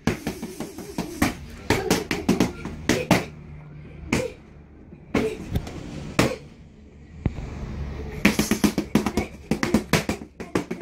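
Boxing-gloved punches smacking focus mitts in quick flurries, with single strikes about once a second in the middle and a short pause before another fast flurry near the end.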